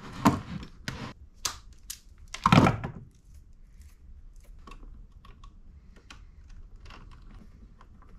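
Hands handling electrical wires, plastic connectors and a screwdriver on a plywood board. Several sharp clicks and knocks in the first three seconds, the loudest about two and a half seconds in, then faint scattered ticks.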